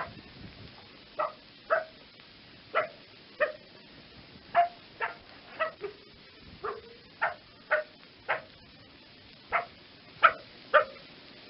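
Fox barking: a string of about fifteen short, yappy barks, unevenly spaced half a second to a second apart.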